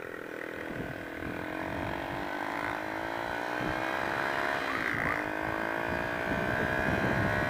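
Honda XR125's single-cylinder four-stroke engine pulling under way, its note slowly rising in pitch as the bike gathers speed and then holding steady, with wind noise on the microphone.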